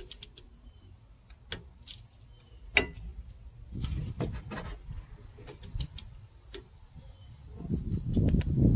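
Scattered metallic clicks and clinks of hand tools as the rear brake caliper bolts are snugged up by hand, with a louder low rumble near the end.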